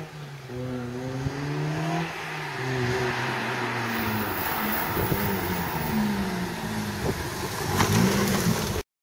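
Honda Civic Type R FN2's 2.0-litre four-cylinder engine with a JPerformance aftermarket exhaust, accelerating toward and past close by. The pitch rises, drops sharply about two seconds in, climbs again, and is loudest as the car passes near the end, where the sound cuts off suddenly.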